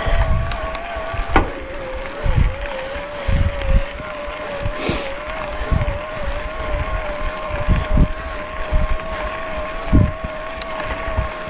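Electric mountain bike's motor whining steadily at one slightly wavering pitch while pedalling in eco assist mode, with wind gusting on the microphone and a few sharp knocks from the bike over the trail.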